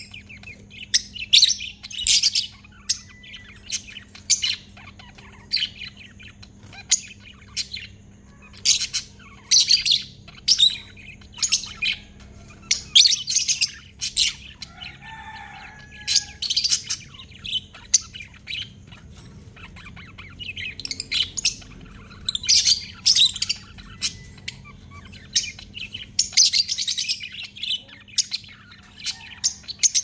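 Caged lovebirds chirping: short, shrill calls in quick runs, a run every second or two, with brief pauses between.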